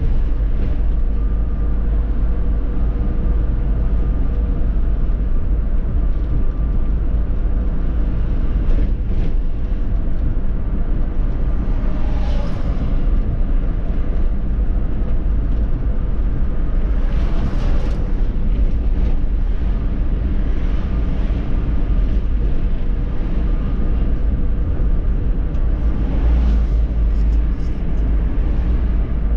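Solaris Urbino 18 articulated city bus driving: a steady low rumble of engine and road noise, with a few brief hissing swells.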